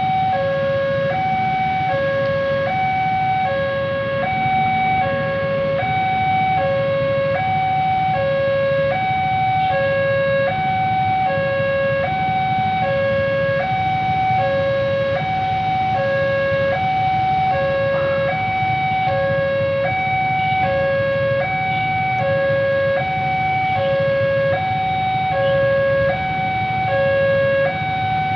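Electronic warning alarm of a railway level crossing, two steady tones alternating high and low about once a second, the signal that a train is coming and the road must stay stopped. Idling motorcycle and car engines rumble underneath.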